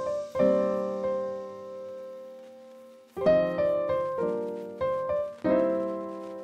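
Background music: slow piano chords, each struck and left to ring and fade, with a long-held chord early and a few more chords in quicker succession in the second half.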